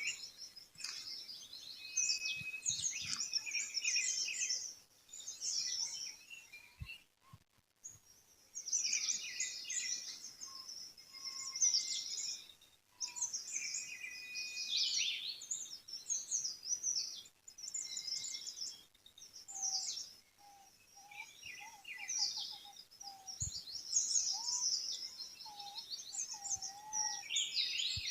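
Several songbirds chirping and singing at once, a dense mix of quick high chirps and trills. In the second half a lower whistled note repeats in a short series.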